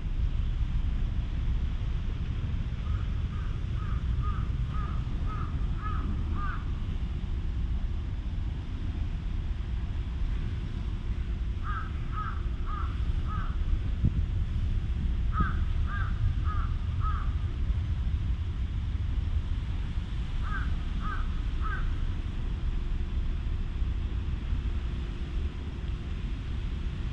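A crow cawing in four bouts of three to eight quick caws, about two caws a second, with pauses of several seconds between bouts. A steady low rumble of wind on the microphone lies underneath.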